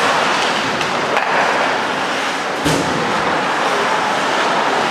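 Ice hockey play on the rink: skates scraping and carving the ice, with one sharp knock a little under three seconds in.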